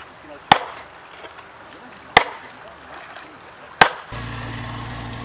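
Three sledgehammer blows on a wooden stake being driven into a stream bank, each a sharp crack, spaced evenly about a second and a half apart. Near the end a small engine starts a steady hum, that of a mini excavator running.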